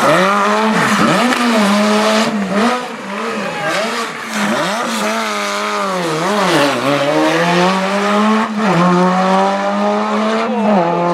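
Classic rally car's engine revving hard through a hairpin, the revs dipping and picking up again and again as the driver works the throttle, then climbing as the car pulls away with two upshifts near the end.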